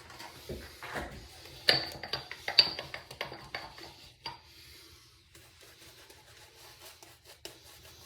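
Wet-shaving sounds: rubbing and scraping, with a cluster of sharp clinks about one and a half to four and a half seconds in, then softer scraping.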